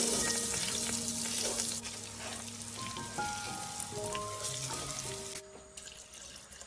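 Washed, wet rice hitting a hot pot of spiced beef and oil, sizzling loudly at first, then frying more quietly as it is stirred in, the hiss dropping away about five seconds in. Soft background music with slow held notes plays under it.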